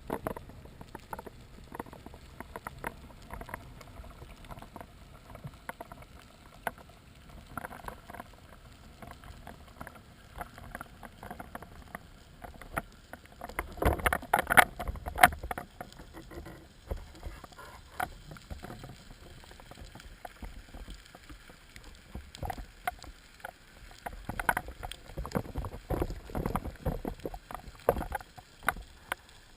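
Underwater sound: a steady crackle of small clicks and water rustle, with louder bursts of water movement about halfway through and again near the end.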